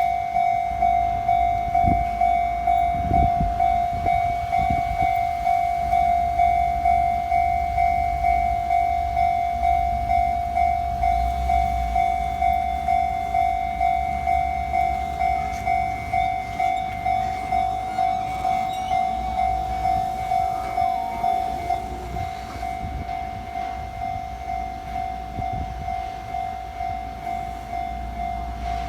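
Japanese railway level-crossing warning bell ringing steadily, about one and a half strokes a second, as a Keihan train passes over the crossing with a low rumble of wheels on rails. The bell drops a little in level about three-quarters of the way through.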